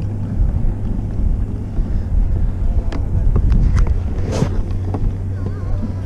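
Wind buffeting the camera's microphone, a loud uneven low rumble under a steady low hum, with a few small clicks and a brief hiss about four and a half seconds in.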